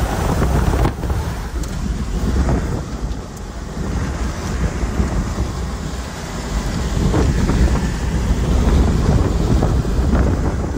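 Tornado winds rushing and buffeting the vehicle and microphone, swelling and easing in gusts.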